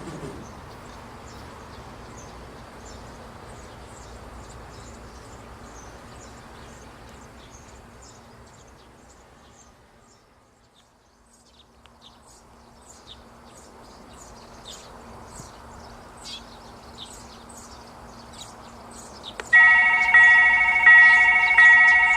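Rumble of a train that has just passed, fading away, with short high chirps scattered over the quiet. About three seconds before the end, a railway level-crossing warning bell starts ringing loudly, a repeated ding a little under a second apart.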